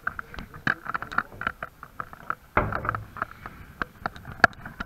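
Footsteps on a debris-strewn floor: a quick run of crunches and sharp clicks, with a duller thump about halfway through.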